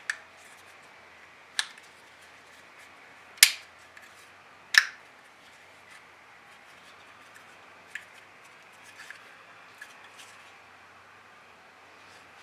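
Sharp plastic clicks of a replacement rear window switch being pressed and snapped into its plastic housing. Four loud clicks come in the first five seconds, then a few fainter ticks.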